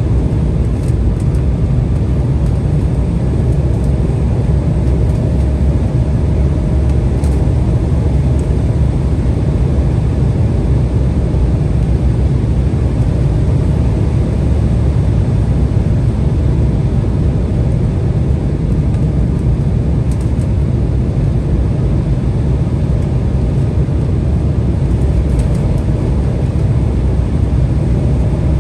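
Steady low rumble inside the passenger cabin of an Embraer 175 in flight: airflow over the fuselage and its GE CF34 turbofans.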